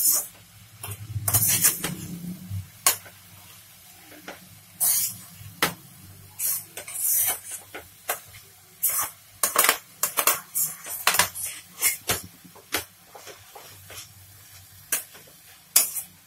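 A steel spoon scraping and knocking against a kadai as thick grated-carrot halwa is stirred, in quick, irregular strokes.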